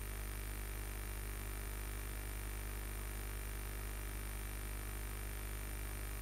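Steady electrical mains hum with a thin high-pitched whine and hiss, unchanging throughout.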